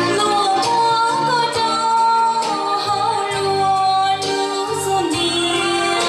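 A woman singing solo into a handheld microphone over backing music, holding long notes that bend and slide in pitch above a pulsing bass line.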